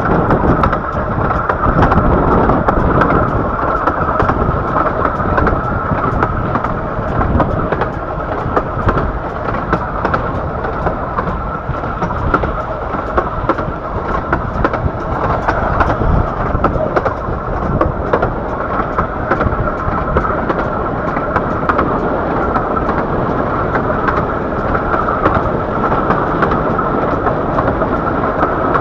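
Miniature railway train running along the line: a steady rumble and clatter of the moving carriage on the track, with scattered clicks.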